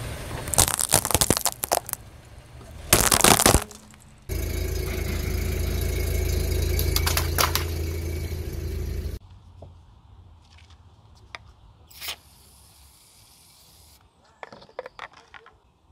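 Car tyre rolling over whole walnuts, the shells cracking sharply several times and then giving one loud crunch about three seconds in. Then comes a steady rush of water spraying out under the tyre for about five seconds, and near the end short spurts from an aerosol can of shaving foam.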